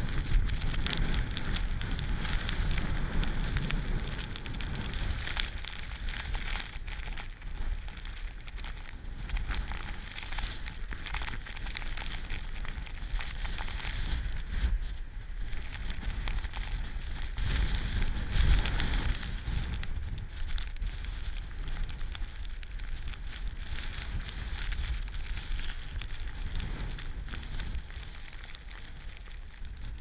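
Strong blizzard wind buffeting a GoPro's microphone: a rough, rumbling noise that swells in gusts, strongest at the start and again a little past halfway, with a crackling patter like wind-driven snow striking the camera.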